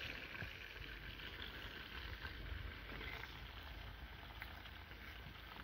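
Faint, steady sizzle of chicken pieces frying in hot oil in a small pan over a wood fire, with a low rumble underneath.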